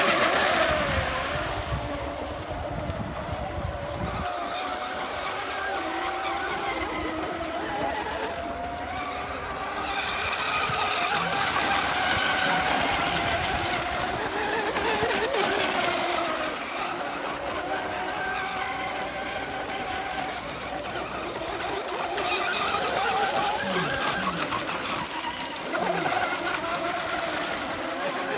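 Several electric 6S sports hydro RC boats racing, their motors and propellers whining at high pitch, the pitch of each rising and falling as the boats pass.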